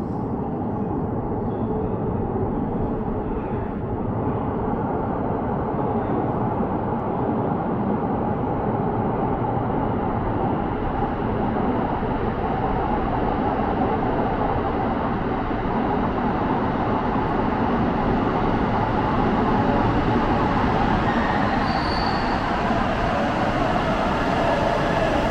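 Electric commuter train approaching through a railway tunnel toward the platform: a continuous rumble from the tunnel mouth that grows gradually louder, with a brief high whine about 22 seconds in. It is quite a sound.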